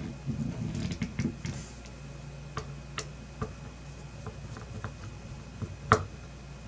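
Scattered small clicks and ticks of a screwdriver and screws working on a graphics card's cooler as its screws are tightened to hand tight, with one sharper click about six seconds in, over a steady low hum.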